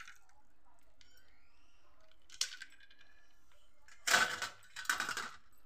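Glassware clinking against a steel serving tray: a light click, then two sharp clinks about a second apart near the end.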